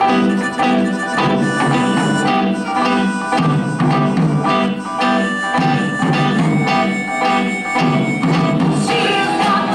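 Band playing an instrumental rock passage of a stage-musical number, with held instrumental notes over a steady beat.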